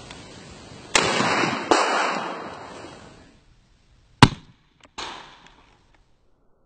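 12-gauge shotgun blasts: two sharp reports about a second in, less than a second apart, each trailing off in a long echo. After a quiet stretch comes a single very sharp crack, then a shorter report a moment later that fades quickly.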